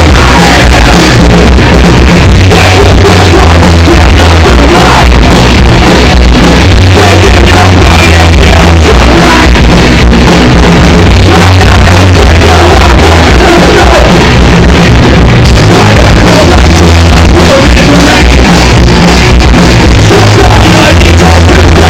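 Loud, heavily compressed rock music with singing and a strong, shifting bass line.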